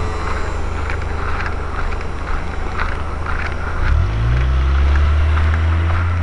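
Low engine hum from a nearby motor vehicle, rising in pitch and getting louder about four seconds in, with scattered light clicks over it.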